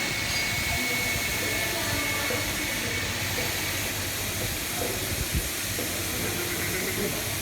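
CNC fiber laser cutting machine running: a steady hiss over a low hum, with a thin high whine during the first two seconds or so.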